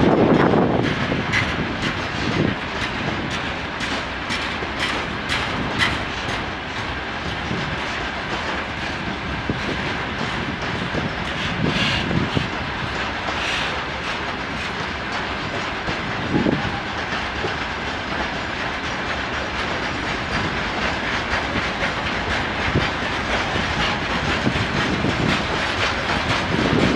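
Freight train wagons rolling past, their wheels clacking and thudding over the rail joints at a steady pace. A thin, steady high whine runs above the rolling noise.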